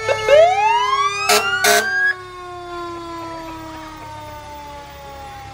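Fire engine sirens: quick rising whoops and one longer rising wail, with two short horn blasts about a second and a half in. The whoops stop suddenly about two seconds in, leaving a siren winding down in one slow falling tone.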